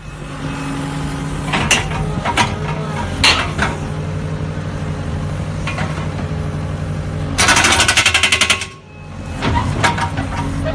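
Takeuchi compact track loader's engine running steadily while its hydraulic breaker attachment strikes rock. A few single knocks come first, then a second-long burst of rapid hammering about seven and a half seconds in, followed by more knocks near the end.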